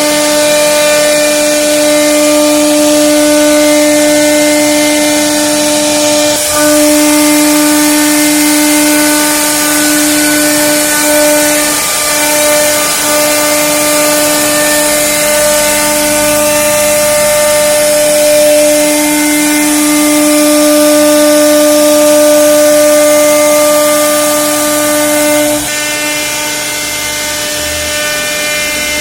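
CNC router spindle running and cutting wood, a loud, steady, high whine with a hiss of cutting. It drops a little quieter near the end.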